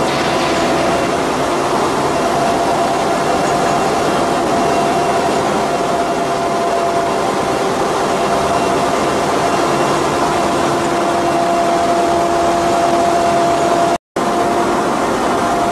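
Copper rod continuous rolling mill running: steady industrial machine noise with a constant whine from the roll stand drives. The sound drops out for a moment near the end.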